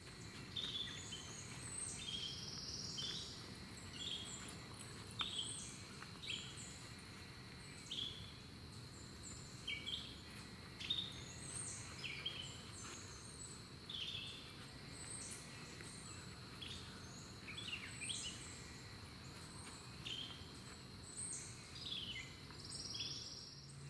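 Woodland ambience: birds calling with short falling chirps about once a second, over a steady high-pitched insect drone and a low background rumble.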